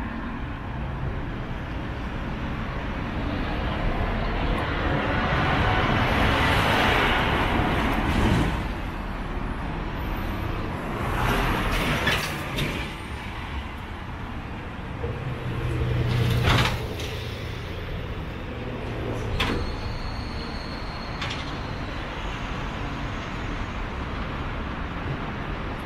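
Street traffic: road vehicles passing one after another, rising and fading over several seconds each, with a few short clicks and a brief high tone about three-quarters of the way through.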